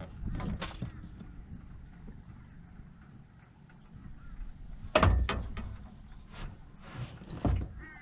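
Knocks and thuds inside a small aluminium dinghy as a person moves about in it, the loudest about five seconds in, with a few more after it over a low rumble.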